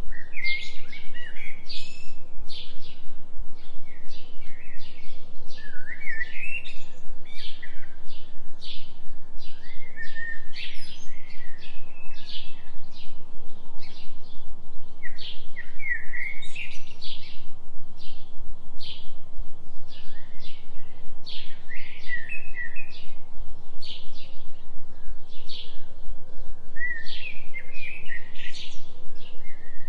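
Many songbirds chirping and trilling without pause, over a low, steady binaural tone tuned for a 3 Hz delta beat.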